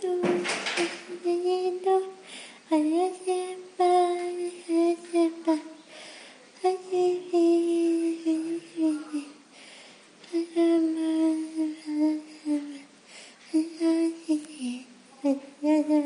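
A female voice singing a wordless melody alone, in phrases of a second or two with short breaks between them.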